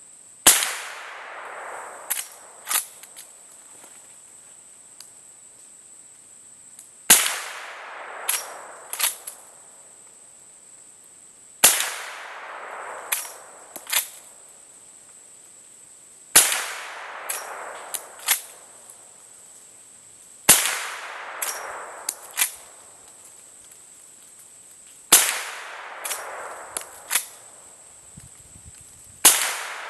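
Henry Big Boy Steel lever-action rifle in .41 Remington Magnum fired seven times, about every four to five seconds, each shot echoing away. Between shots, two or three quick metallic clicks of the lever being worked to chamber the next round. A steady high-pitched tone runs underneath.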